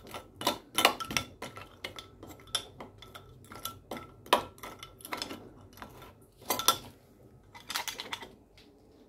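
A metal spatula stirring ice water in a glass beaker: a quick, irregular run of clinks and knocks as the spatula and ice chunks strike the glass, which rings faintly after the harder hits. The clinking stops shortly before the end.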